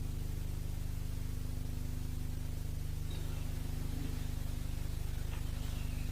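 Steady low electrical hum, one unchanging drone with several overtones, with a few faint ticks about three and five seconds in.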